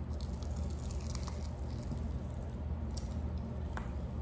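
Faint small clicks and squishing of corn dogs being handled and chewed, over a steady low hum.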